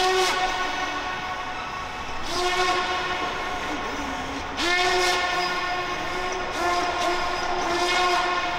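Whine of an F3P model plane's T-Motor BPP-4D brushless motor and propeller in flight, a steady pitched drone that surges up several times as the throttle is opened, each surge starting with a short rise in pitch.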